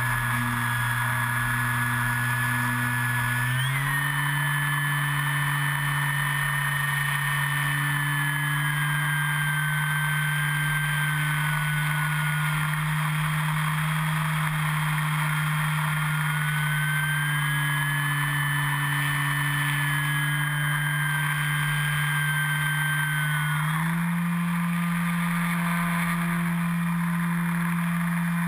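Electric motor and propeller of an E-flite Carbon-Z Yak 54 RC plane in flight, a steady drone picked up by its onboard camera, with a higher whine that slowly drifts down and back up in pitch. The drone's pitch steps up about four seconds in and again near the end.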